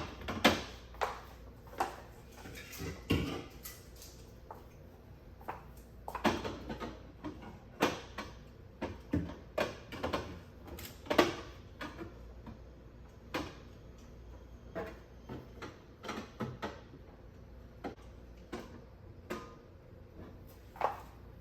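Drink cans being loaded into a drink rack: irregular clinks and knocks, sometimes a few in quick succession, with short pauses between.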